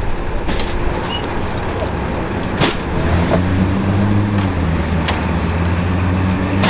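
A large road vehicle's engine running, a steady low hum over traffic noise that grows stronger about three seconds in. A couple of sharp knocks are heard along with it.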